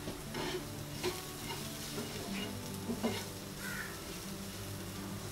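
A spatula stirring diced vegetables as they sauté in oil in a stainless steel pan: a soft sizzle of frying, with a handful of short scrapes of the spatula against the pan.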